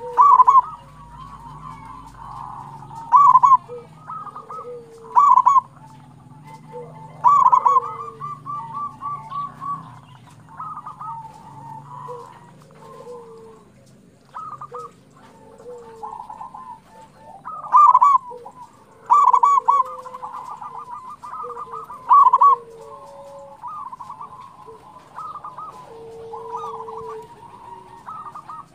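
Zebra doves (perkutut) cooing over and over: loud, rolling coos come every few seconds, with softer staccato cooing and lower overlapping coos in between.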